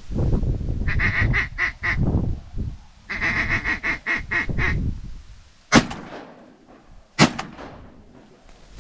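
Ducks quacking in two quick runs of quacks over a low rumble, then two shotgun shots about a second and a half apart, the loudest sounds.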